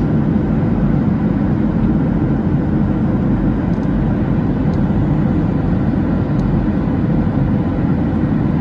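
Steady cabin noise of a Boeing 737-700 in cruise, heard from a window seat over the wing: engine and airflow noise as an even, deep rumble with a faint hum.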